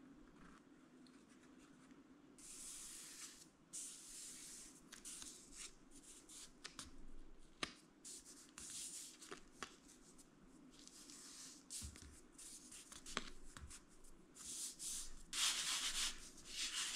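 Hands sliding and pressing on thin balsa wood sheets, with intermittent soft scrapes and a few light ticks. Near the end a sanding block is rubbed in repeated strokes over the joint between the balsa sheets, working sanding dust into the cracks before CA glue.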